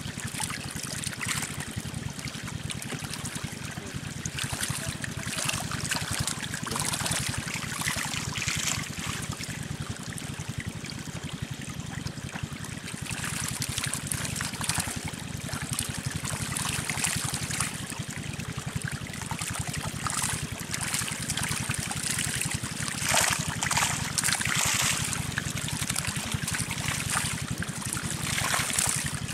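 Shallow water trickling and splashing through a narrow muddy channel, a steady run with irregular louder splashes, a cluster of them late on.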